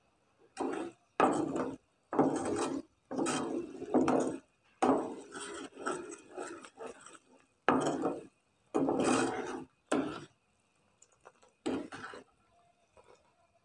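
A spoon scraping against a cooking pan in about a dozen short, irregular strokes while stirring sugar syrup, ending about twelve seconds in.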